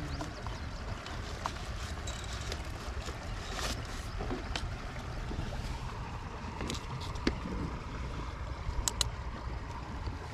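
Steady low outdoor rumble, with scattered small clicks and rattles as battery wires and clips are handled, and two sharp clicks about nine seconds in.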